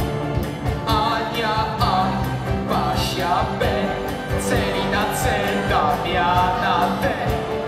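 Song with a steady beat and a voice singing over it.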